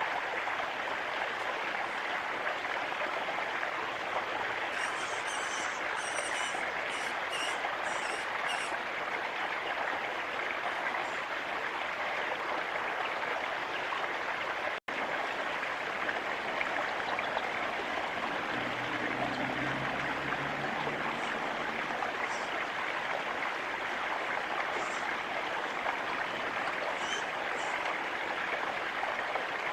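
Steady rushing of a stream, with clusters of short, high bird chirps about five seconds in and again near the end. A brief low hum comes in about two-thirds of the way through.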